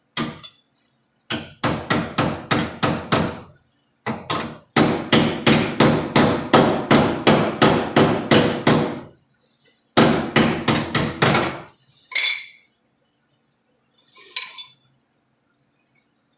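Hammering sheet metal to shape a patch panel into place: quick runs of sharp hammer blows at about three to four a second, broken by short pauses, with two lighter taps near the end.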